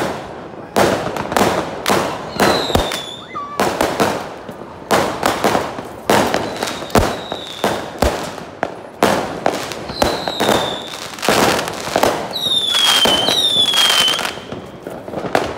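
Fireworks going off in rapid succession: a dense string of sharp bangs, with a few short falling whistles among them.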